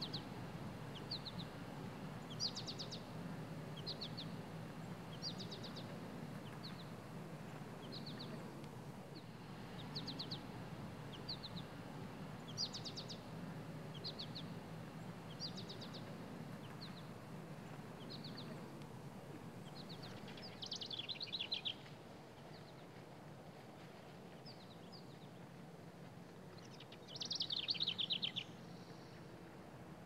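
House wren calling: short high trilled chirps repeating about once a second, and twice, past the middle and near the end, a louder falling bubbling song. A steady low rumble of background noise lies underneath.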